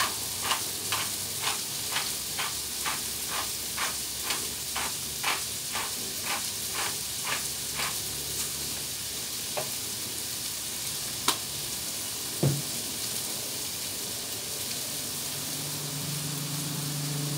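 Food sizzling steadily on a Blackstone flat-top griddle, with a hand pepper mill grinding black pepper over it in a regular run of clicks about twice a second that stops about seven seconds in. Later comes a single sharp click and a soft thump.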